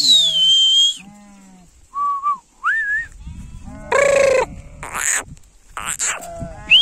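A herder's shrill whistle, a falling note held for about a second, then shorter rising whistled notes, among sheep and goats bleating. One loud bleat comes about four seconds in.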